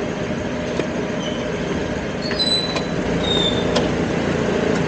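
Steady rumble of street traffic, with a few faint clicks and a couple of short high beeps in the middle.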